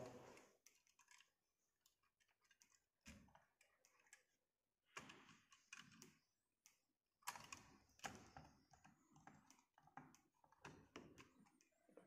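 Near silence broken by faint, scattered clicks and taps of a screwdriver on a contactor terminal screw as a control wire is fastened into a DOL starter.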